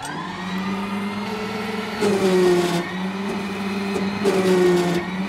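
Electric mini loader's hydraulic pump motor starting up and whining steadily as the loader arms and bucket are worked. About two seconds in and again near the end it gets louder and hissier, with a higher tone that falls slightly.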